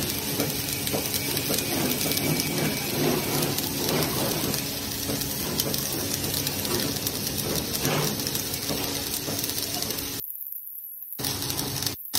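Steady hissing, crackling metalworking noise from the steel fabrication shop, with a few faint steady hums underneath; it drops out for about a second near the end.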